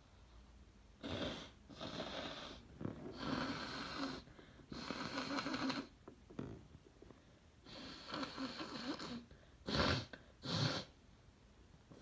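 A person blowing their nose hard, again and again: a string of long blows through the first half, another a couple of seconds later, then two short, sharp, loudest blows near the end.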